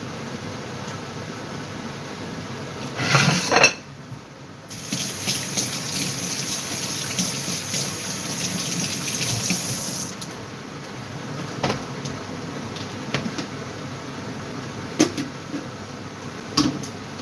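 Kitchen mixer tap running into a stainless steel sink while hands are rinsed under the stream, a steady hiss for about five seconds that stops abruptly when the tap is shut off. A brief louder noise comes before it, and a few light clicks follow.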